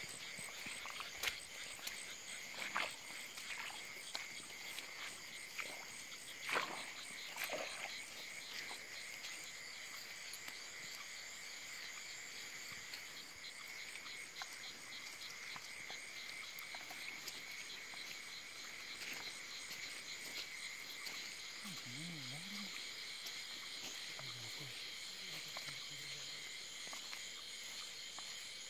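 Night chorus of frogs and insects: steady, finely pulsing high-pitched calls throughout, with a few short, louder knocks or rustles in the first eight seconds.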